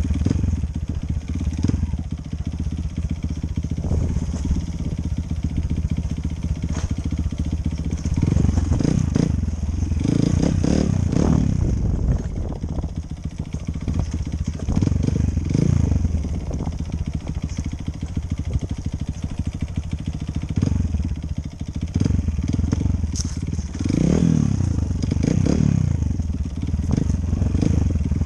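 Enduro dirt bike engine running under load, its pitch rising and falling several times as the throttle is opened and eased off.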